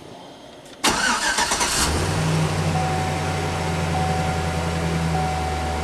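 The 2007 Chevrolet Silverado Classic's V8 is cranked by the starter, catches about two seconds in and settles into a steady idle. A high electronic tone sounds over the idle, broken briefly about once a second.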